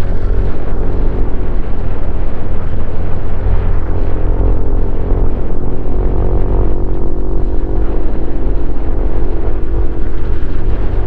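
Honda CRF150L's single-cylinder four-stroke engine running through a Norifumi Noctus T5 aftermarket exhaust while riding, held at fairly steady revs, over heavy wind rumble on the helmet-mounted camera.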